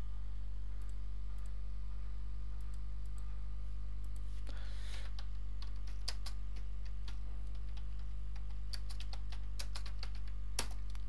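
Computer keyboard keys tapped in short, irregular runs as a search query is typed, over a steady low hum.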